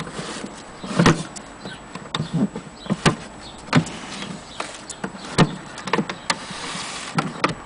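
Irregular wooden knocks and clunks from the wooden case of an antique Singer hand-crank sewing machine being handled, about nine in all, the loudest about a second in and about five and a half seconds in.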